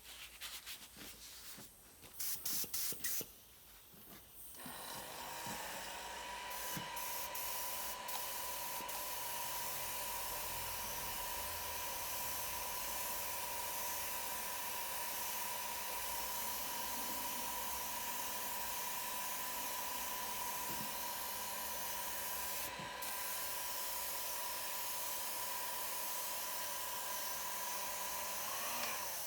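Compressed-air spraying: a few short bursts, then a long steady hiss with a thin whistle in it from about five seconds in, cutting off near the end.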